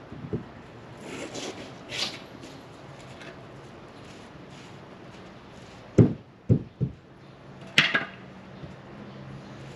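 Wooden knocks and thumps of 2x4 lumber being handled and fitted against a wall stud, with three sharp thumps about six seconds in and another loud knock near eight seconds.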